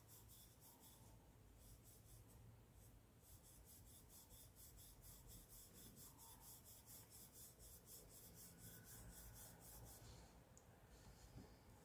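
Faint scratchy rubbing of a small paintbrush stroking paint onto cotton fabric in quick, repeated strokes, pausing briefly near the end.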